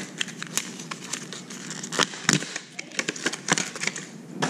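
Clear plastic lure packaging crinkling and crackling as it is handled, with many irregular sharp crackles.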